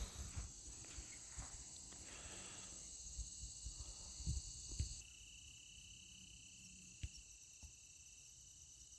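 Faint, steady, high-pitched chorus of insects, with a few soft low knocks in the first half. The chorus changes abruptly about five seconds in.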